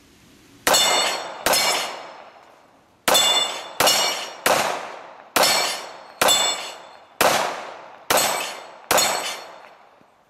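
Ten pistol shots fired at steel targets, each hit ringing with a metallic clang that dies away over most of a second. There are two shots, a pause of about a second and a half, then eight shots in steady succession under a second apart.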